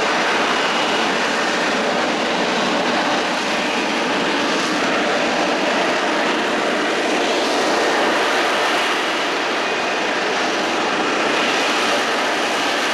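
F-35B Lightning II's single Pratt & Whitney F135 jet engine running: a loud, steady jet roar with a faint high whine, unbroken for the whole stretch.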